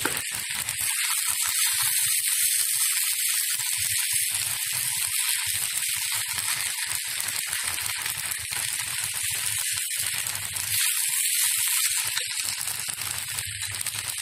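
Vegetable fried rice being stirred in a frying pan with a wooden spatula: a steady sizzle, with the spatula scraping and clicking against the pan throughout.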